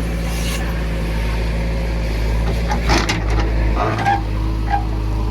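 Heavy diesel engine running steadily, with a few short knocks and brief squeaks about three and four seconds in.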